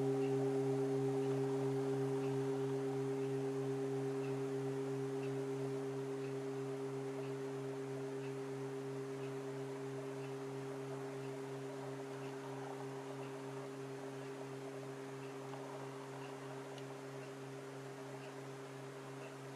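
Hand-hammered singing bowl ringing out: a deep hum with several higher overtones, the low tone wavering in a steady pulse, slowly fading throughout.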